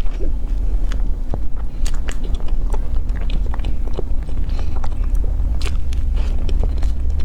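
Close-miked eating: biting and chewing with irregular wet mouth clicks and smacks, over a steady low hum.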